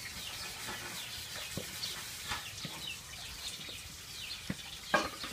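Many short, high, falling bird chirps, with a few sharp clicks from a knife cutting a sponge gourd over a metal bowl. The loudest click comes near the end.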